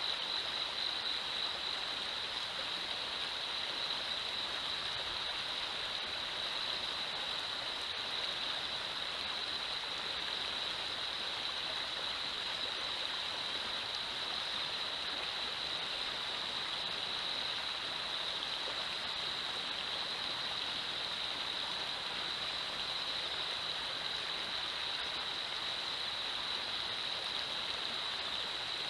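Shallow river riffle: water running steadily over rocks, a constant rushing with a steady high hiss on top.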